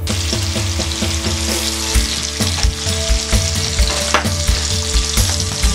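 Strips of cured pork sizzling as they fry in their own rendered fat in a nonstick frying pan, a steady crackling hiss.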